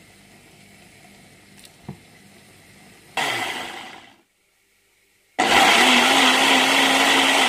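Electric blender blending tomatoes and whole spices into a paste: a short run about three seconds in that winds down, then a second steady run starting about five seconds in.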